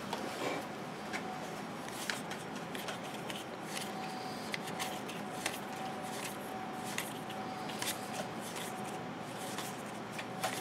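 Stacks of paper trading cards being thumbed through by hand: cards sliding off one another with soft, uneven little clicks and rustles.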